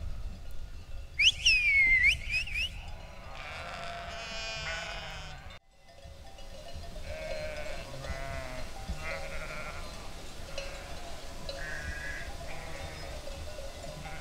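A shepherd's sharp whistle sliding up and down, about a second in, then a flock of sheep bleating: many overlapping, wavering bleats at different pitches.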